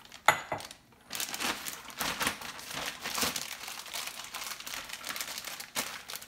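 Zip-top plastic storage bag crinkling steadily as it is folded and pressed flat to seal it, after a single sharp knock just after the start.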